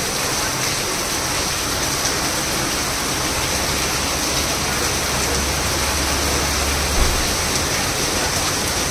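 Heavy downpour falling steadily onto paved ground and puddles, a dense, even hiss. A low rumble comes in about five seconds in and ends with a short thump near seven seconds.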